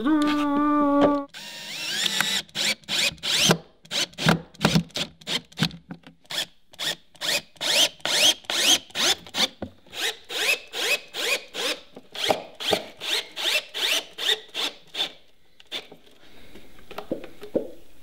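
Cordless drill driving screws into the wooden boxes of an old beehive. It runs steadily for about a second, then the trigger is pulsed in short bursts, about three a second, each spinning up in pitch, until it stops a few seconds before the end.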